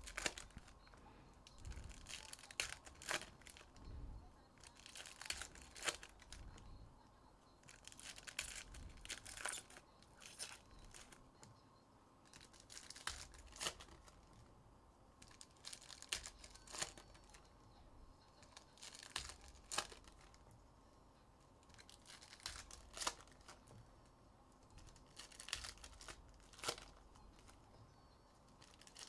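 Foil trading-card pack wrappers being torn open and crinkled by hand, one pack after another, in short quiet bursts every second or two.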